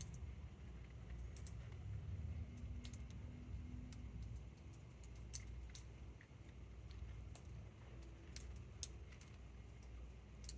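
Low, uneven rumble of distant thunder from a summer storm, with scattered faint sharp clicks and ticks at irregular moments.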